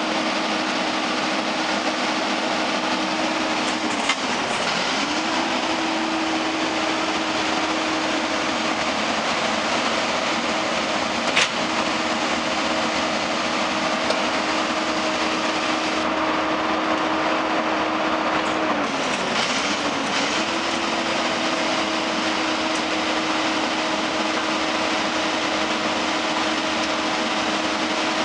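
Peterbilt 320 garbage truck's diesel engine running at a steady raised speed to drive the Leach 2R2 Packmaster rear loader's hydraulics while a 4-yard dumpster is tipped into the hopper. The engine note dips briefly and recovers twice. There are a couple of sharp knocks, the loudest about eleven seconds in.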